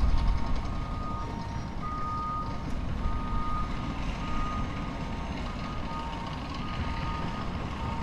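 Reversing alarms of construction machinery beeping: two alarms at different pitches, one higher and one lower, beeping repeatedly out of step with each other over a steady low rumble.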